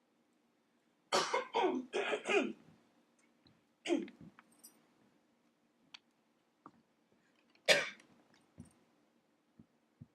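A woman's short wordless vocal cries, each falling in pitch: a quick run of four or so about a second in, then one near four seconds and a last, sharper one near eight seconds. Faint small clicks sound between them.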